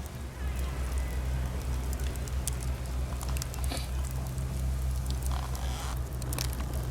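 Campfire crackling with scattered sharp pops, over a steady low rumble.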